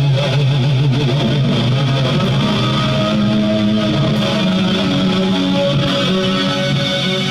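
Guitar music, with an electric guitar playing at a steady, loud level.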